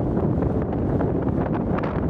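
Wind buffeting the microphone in a steady low roar, with a scatter of short clicks and scrapes over it.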